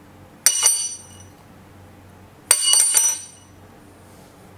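Plasma-cut quarter-inch steel bracket tapped against a hard surface to knock off the dross from the cut, giving ringing metallic clinks. Two short clusters of a few quick hits, about a second in and again near three seconds in.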